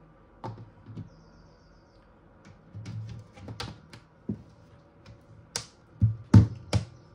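Hard plastic snap-on laptop case being pressed onto a MacBook Air: a scatter of sharp plastic clicks and knocks as its clips catch on the edges, the loudest several coming close together about six to seven seconds in.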